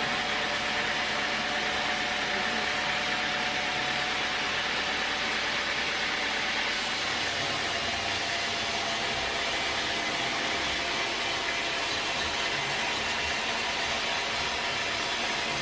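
Sawmill machinery running steadily: a constant mechanical hum and hiss with a faint steady whine, growing slightly brighter about seven seconds in.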